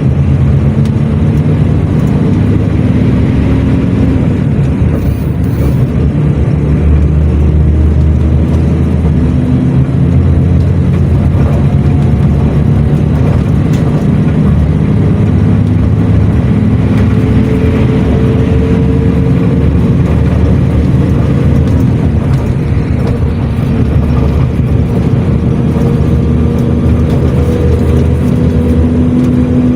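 Engine of an odong-odong running under way, heard from on board, with a steady low drone. Its pitch rises slowly as it speeds up, about halfway through and again near the end.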